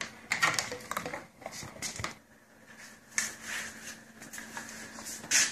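Rubber suction cups and their cables being handled and set down on a desk: a quick run of light clicks and knocks in the first two seconds, then a few short scuffing, rustling sounds.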